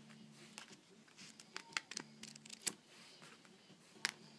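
Quiet handling noise: a few light clicks and taps, the sharpest about two and a half seconds in and again near four seconds, as a pile of paper memo pads is shifted about.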